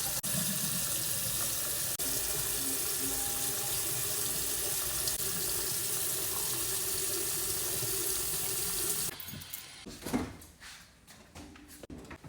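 A tap running steadily into a sink for about nine seconds. It stops abruptly, followed by a few quiet knocks and handling sounds.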